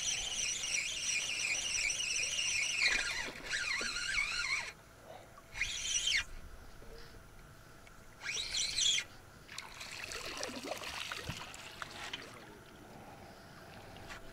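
A spinning reel whirring as line is wound in for about the first three seconds. Then there is splashing and trickling water, several short splashes, as a small hooked zander is drawn through the surface.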